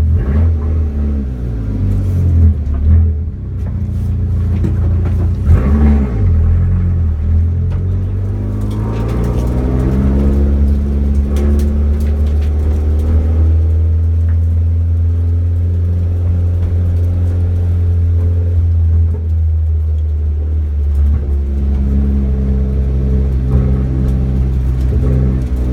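Car engine under load on a track, revving up and easing off several times, its pitch climbing in long rises and dropping back as the gears change.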